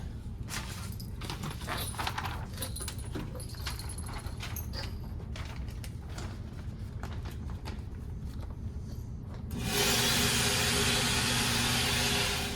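Small metallic clicks and rattles, like loose metal parts or cartridges being handled. Near the end a loud, steady rushing noise with a faint hum comes in for about two and a half seconds and then stops.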